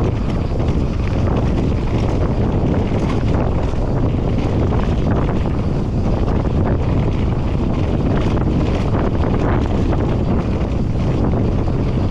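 Wind rushing hard over the camera microphone of a mountain bike going fast down a dirt trail, steady and loud, with scattered short clicks and knocks from the bike and tyres over the ground.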